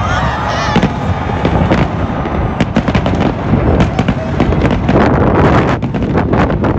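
Fireworks display: aerial shells bursting over a continuous low rumble, with sharp cracks and bangs coming thicker and faster from about two and a half seconds in.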